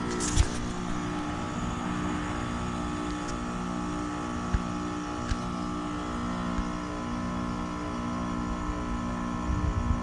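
American Standard Silver Series heat pump outdoor units running, giving a steady, slightly wavering compressor hum. A sharp knock comes just after the start, and two fainter ones come around the middle.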